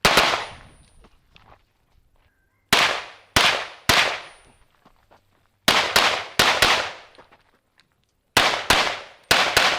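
Competition handgun firing in a timed practical-shooting stage: a single shot, then quick pairs and strings of shots about a third of a second apart, in groups of three or four separated by pauses of one to three seconds. Each crack rings off briefly.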